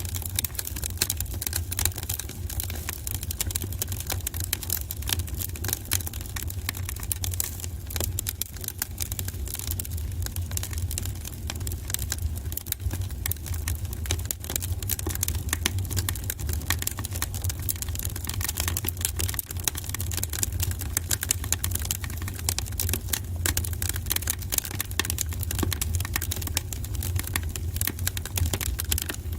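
Wood fire burning in a fireplace, crackling with many small irregular pops over a steady low rumble.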